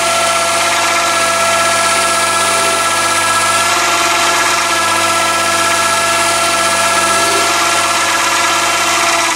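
Chinese mini lathe running steadily under a cut, a carbide-insert tool turning the spinning workpiece. The motor and gearing give a steady whine of several tones over a hiss.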